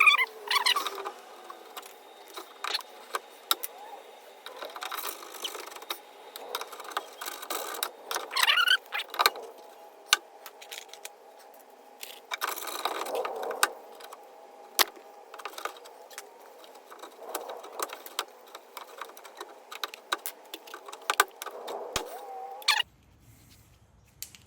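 Clicks, clinks and short squeaks of hand tools and plastic trim clips being worked at, a few squeaks sliding up in pitch, over a faint steady hum.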